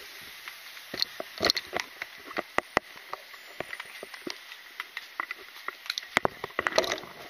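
Irregular light clicks and taps, several a second, from carried gear and footsteps while walking, over a low steady hiss.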